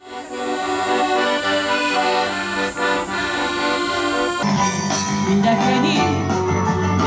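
Accordion playing held chords and melody. About four and a half seconds in, it cuts abruptly to a different piece of live music with a strong bass line.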